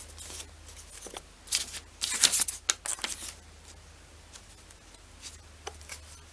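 Handling noise from a clear plastic camera housing on a clamp mount and paper leaflets: scattered clicks and short rustles, busiest from about one and a half to three seconds in, then a few lighter clicks.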